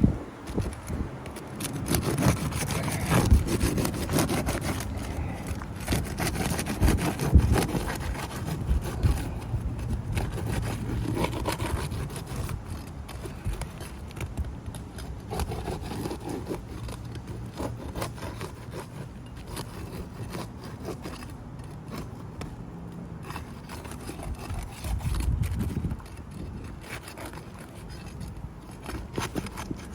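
Irregular scraping, rubbing and small knocks of hand work on an old, brittle asphalt roof shingle being worked loose for a wind-crease repair.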